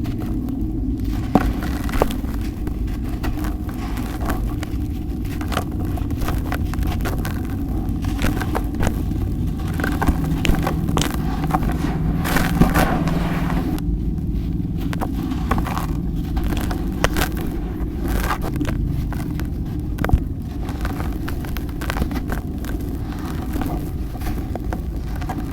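Chunks of cement-and-sand floor material being crumbled and crushed by hand, giving scattered crackles, clicks and gritty scraping. Under it runs a steady low rumble, the fault from the poor microphone.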